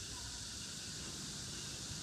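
Steady background hiss over a faint low rumble, with no distinct knocks or machine tone.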